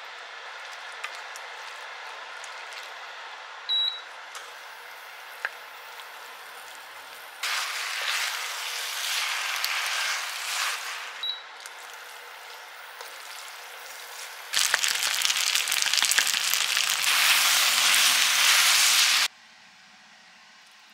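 Spaghetti, ketchup sauce and pasta water sizzling in a hot frying pan. The sizzle gets much louder in two stretches while the pasta is tossed with metal tongs, and cuts off suddenly near the end.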